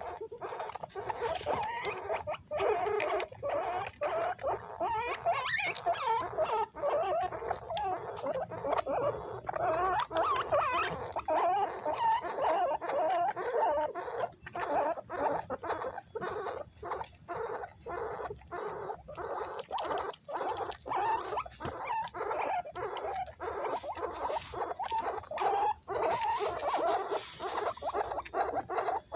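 A group of guinea pigs squeaking and squealing almost without pause, high, wavering calls overlapping one another as they jostle for food, with many short clicks and scuffles mixed in.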